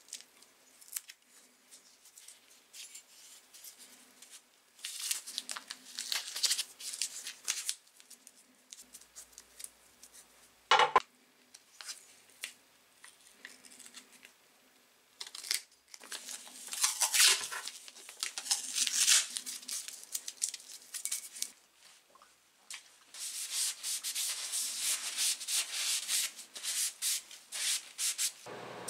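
Masking tape being unrolled, torn and pressed around the handles of a pair of steel pincers, in irregular rustling bursts with one sharp snap about eleven seconds in. Near the end, a cloth rubs steadily over the bare steel jaw.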